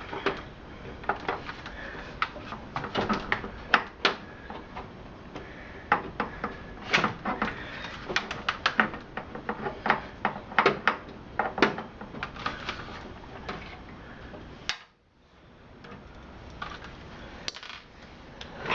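Irregular metallic clicks and clinks of a screwdriver and screws being worked inside a desktop PC's metal case while the motherboard is unscrewed. The clicking stops for a moment about fifteen seconds in.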